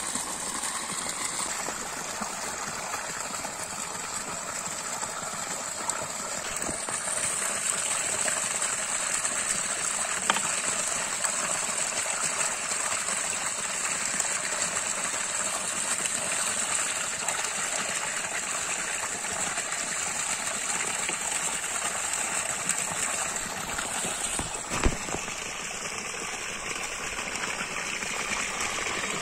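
Water gushing steadily from a pipe outlet and splashing onto the ground and over goat intestines being rinsed by hand. A single sharp knock comes near the end.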